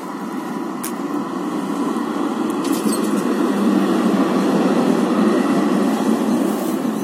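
Vienna tram running into the stop and passing close by, steel wheels rolling on the rails. The running noise builds as it nears, loudest about four to six seconds in, then eases a little.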